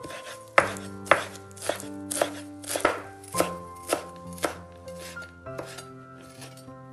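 Chef's knife chopping fresh dill on a wooden cutting board: sharp knocks of the blade hitting the board, about two a second, getting lighter after about four and a half seconds.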